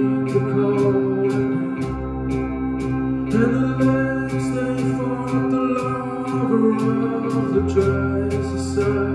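Live rock band playing: electric guitars holding sustained chords, drums with a steady cymbal beat about twice a second, and a singer's voice on top. A low bass line shifts to a new note about two seconds in and again near the end.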